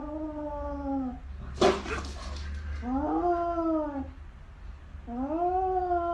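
Domestic cat giving three long, drawn-out yowls, each rising and then falling in pitch, with a short, sharp noisy burst between the first two.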